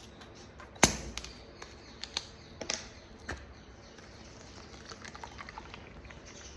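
Snack eating with potato chips: one sharp click about a second in, then a few lighter clicks and, later, faint crackles.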